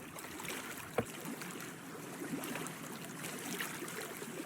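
Water lapping and trickling against a boat, with a single sharp click about a second in.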